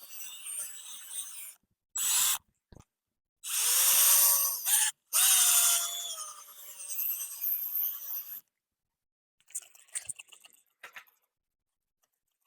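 Power drill driving a sanding pad over a headlight lens in several short runs, its whine rising as it spins up and falling as it winds down. A few faint taps follow near the end.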